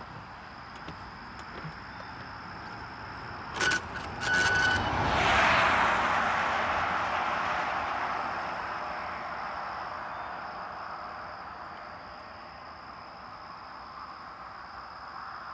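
A car passing on the highway: tyre and road noise swells to a peak about five seconds in and then slowly fades as it drives away. Just before the peak come a few sharp clicks and a short beep.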